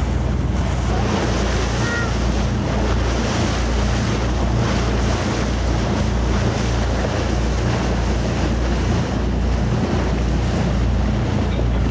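Tour boat's engine running with a steady low hum, under the rush of water and wind buffeting the microphone.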